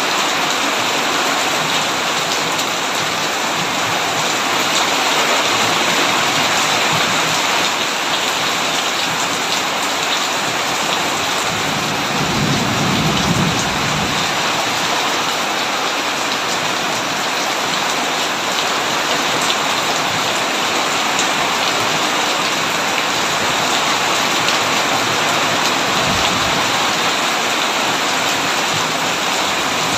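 Heavy rain falling steadily on a tin roof, with a brief low rumble of thunder near the middle and a fainter one near the end.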